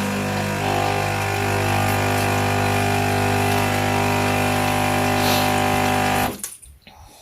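Jura Impressa F8 coffee machine running its coffee-system rinse cycle: the pump runs with a steady hum, then cuts off suddenly about six seconds in.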